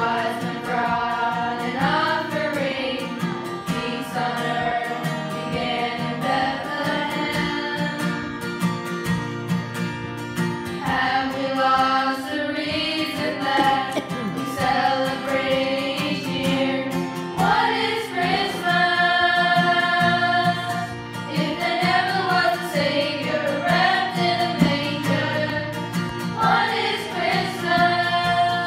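A group of girls singing a song together in unison, with held notes, accompanied by a steadily strummed acoustic guitar.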